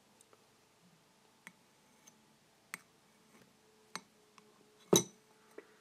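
A few scattered light clicks and taps, about a second apart, with one louder sharp knock near the end.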